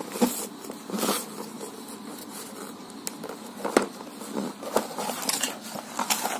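Cardboard product box being handled, turned over and opened: scattered taps, scrapes and rustles of card and packaging, with a few sharper clicks.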